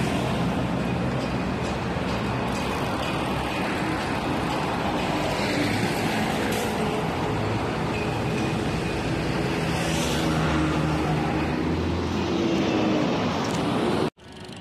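Road traffic: car engines running and passing along a busy street, one vehicle rising in pitch a little past the middle. The sound cuts off abruptly near the end.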